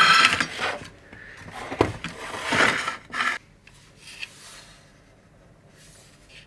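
Metal-cased switching power supplies handled and stacked: sheet-metal cases clattering and scraping against each other and on the finned stepper-driver heatsinks. The clatter is loudest in the first second, with a knock near two seconds and a scrape about two and a half to three seconds in, then only light handling.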